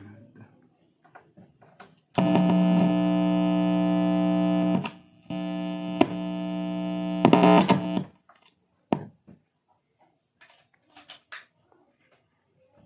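Two long, steady chords played through a Deviser TG-30 guitar practice amplifier, each held without fading and cut off abruptly; the second is a little quieter than the first. Faint clicks follow.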